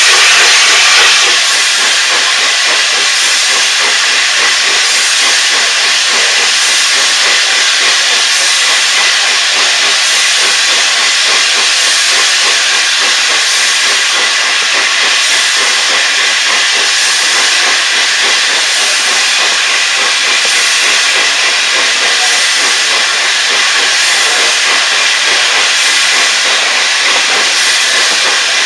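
Steady, loud hiss of escaping steam from a steam-hauled train, a little louder for the first second, then even.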